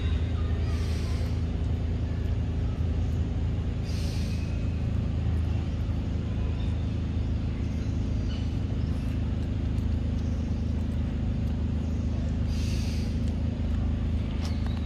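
A motor running steadily with a low, even hum, with a few brief soft rustles on top.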